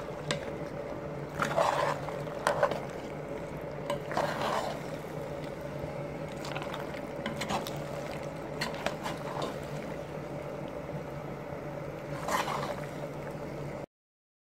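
A spoon stirring penne in a thick white sauce in a pan, with a few scrapes and knocks against the pan over a steady hum. The sound cuts off suddenly near the end.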